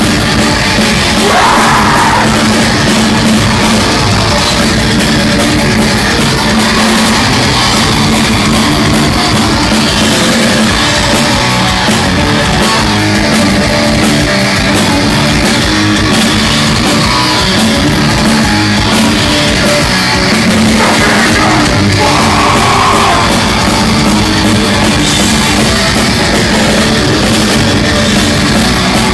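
Grindcore band playing live at full volume: distorted guitars and drums with harsh, shouted vocals.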